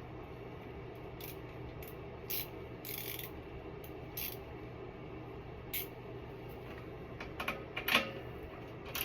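Hand socket ratchet clicking in short, irregular spells as bolts are tightened.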